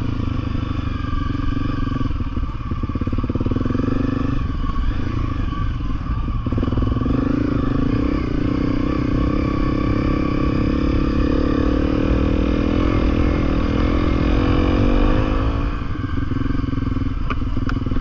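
Honda CRF250L's single-cylinder four-stroke engine running under way. Its pitch shifts a few times early on, climbs steadily through the middle, then drops sharply about two seconds before the end.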